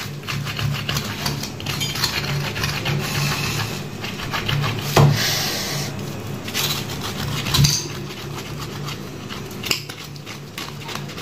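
Metal scraping, rubbing and clinking against a mutton trotter as it is singed and cleaned over a turned-down gas flame, with many short clicks over a steady low hum.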